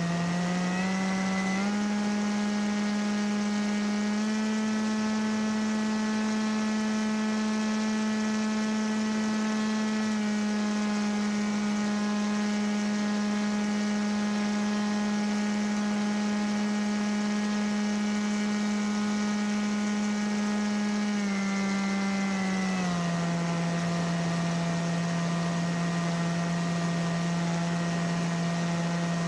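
Paramotor engine and propeller running at cruise throttle, a steady drone whose pitch steps up slightly about two and four seconds in, then steps back down around ten seconds in and twice more past twenty seconds as the throttle is eased.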